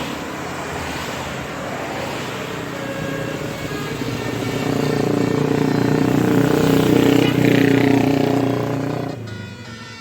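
A large road vehicle, most likely a bus, driving past: a steady engine hum grows louder over several seconds, then drops away sharply about nine seconds in.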